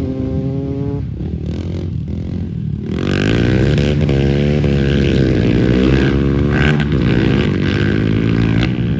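Two dirt bikes' engines revving as they ride, the pitch climbing and dropping with throttle and gear changes; the engines get louder about three seconds in.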